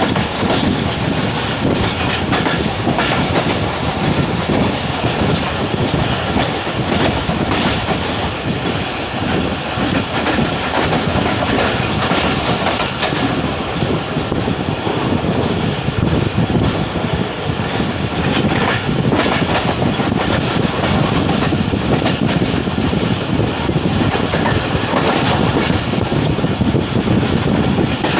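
Moving Pakistan Express passenger train: a steady rumble with the clatter of wheels over the rail joints.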